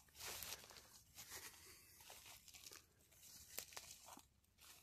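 Faint rustling and crackling of footsteps through leaf litter and woodland undergrowth, a few light crunches scattered over near silence.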